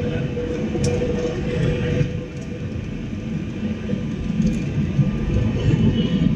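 Steady cabin noise inside an Airbus airliner on approach to landing: a low rumble of jet engines and airflow with a steady hum running through it.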